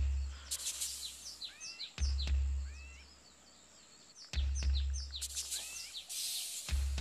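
Film soundtrack of a deep boom repeating about every two and a quarter seconds, each hit fading away, over jungle ambience of bird chirps and whistles.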